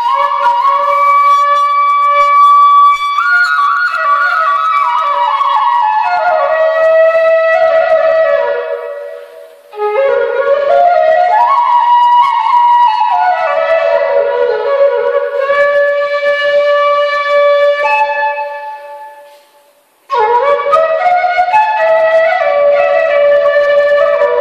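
Background music: a flute melody in long held notes, fading away twice and starting a new phrase each time.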